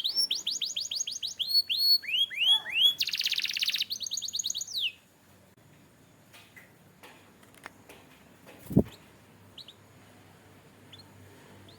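Canary singing a fast run of repeated high, downward-sliding notes with a buzzing trill about three seconds in. The song breaks off at about five seconds, followed by a few faint chirps and a single thump near nine seconds.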